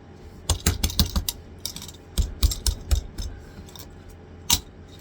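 Irregular sharp clicks and light knocks of small hard drive parts being handled and set down, in a quick cluster through the first few seconds and once more near the end.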